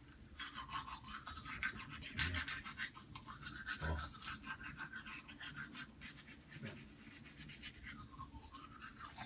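Children's toothbrush scrubbing teeth in quick back-and-forth strokes, the bristles rasping against the teeth.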